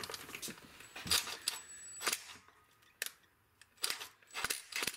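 Irregular sharp metallic clicks and clinks, about a dozen, from a cordless impact driver and its bit working a screw into a small aluminium angle bracket.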